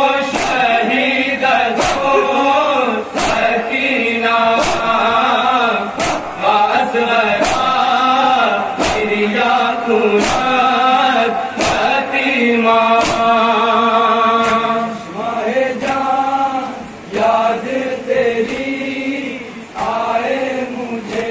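A group of men chanting an Urdu noha (mourning lament) in chorus, with long sung lines. Under the chant are sharp, evenly spaced slaps about every second and a half: the chorus beating their chests in matam.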